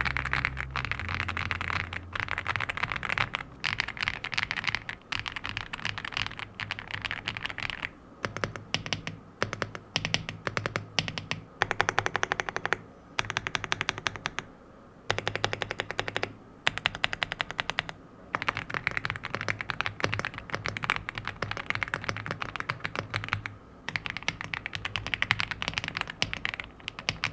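Typing on an Aula F75 mechanical keyboard with pre-lubed linear Reaper switches and PBT keycaps: fast runs of keystrokes in bursts of a few seconds, broken by short pauses.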